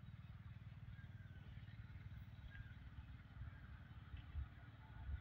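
Faint low rumble of a distant WAG-7 electric locomotive hauling a loaded coal freight train as it approaches.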